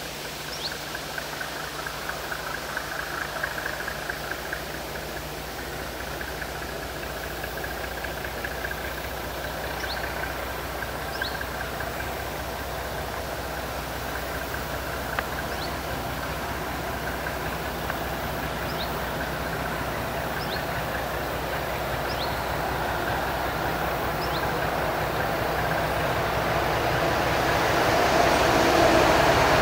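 Diesel locomotive V2.004 approaching at low speed with its museum train, its engine running as a steady low hum that grows steadily louder as it nears.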